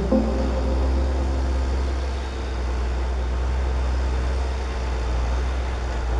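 Fendt tractor's engine running steadily with the de-stoner working behind it: an even low rumble that holds at one level.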